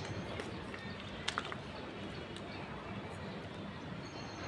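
Hands pressing and crumbling potting soil around a rose plant in a pot: faint rustling over a steady background hiss, with a couple of sharp clicks about a second and a quarter in.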